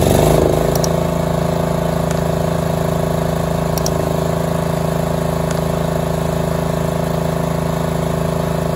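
Briggs & Stratton engine on a Snapper rear-engine riding mower running just after starting: it picks up speed in the first half-second, then runs at a steady speed.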